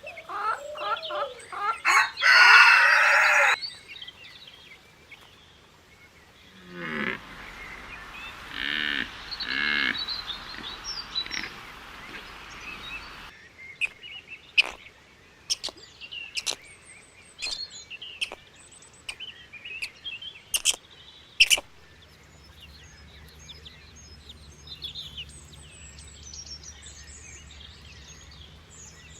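Poultry calling and chirping across a run of short cut-together clips, with a loud harsh call about two seconds in. Sharp clicks and chirps are scattered through the middle, and faint high chirps over a low hum come near the end.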